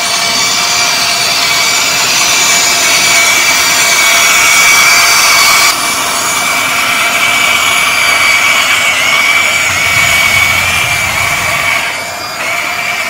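Electric motors and gearing of a Huina RC excavator whining steadily as it tracks and digs, with abrupt changes in the sound about six seconds in and near the end.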